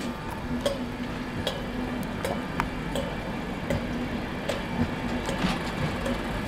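An InterCity 225 train of Mk4 coaches, led by a driving van trailer, passing: its wheels click sharply over the track joints, about one to two clicks a second, over a steady low hum and rumble.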